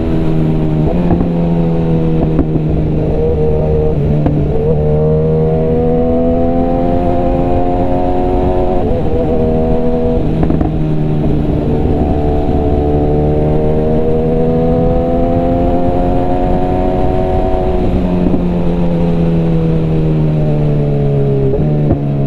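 BMW S1000RR inline-four engine and exhaust under way, heard from the rider's seat. The pitch rises and falls several times as the throttle opens and closes through the gears, then eases down near the end.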